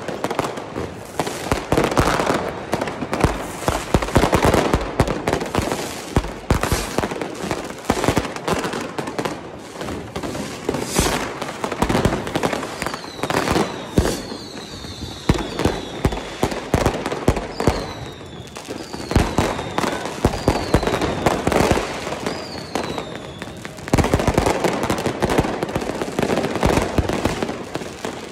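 Many New Year's fireworks and firecrackers going off at once: a dense, continuous run of bangs and crackling. From about halfway through, several short whistles falling in pitch are heard among them.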